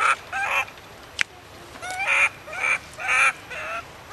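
Young macaque crying in a series of about six short, wavering squeals, a sign of a baby wanting attention. A single sharp click about a second in.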